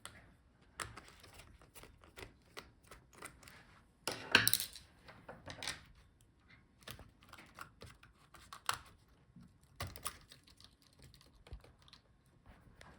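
Small clicks and ticks from hands working on a laptop's internals, flipping cable-connector latches and handling plastic and metal parts, with a louder scraping rustle about four seconds in.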